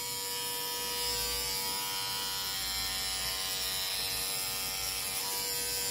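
Xiaomi Grooming Kit Pro body trimmer running with its body-grooming head against leg hair: a steady electric buzz that holds one pitch, really loud.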